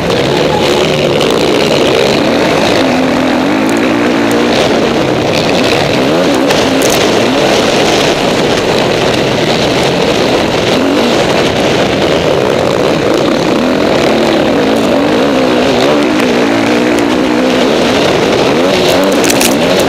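Onboard sound of a 450 cc four-stroke motocross bike racing, its engine note rising and falling continuously as it is revved hard through corners and straights, with other motocross bikes close by.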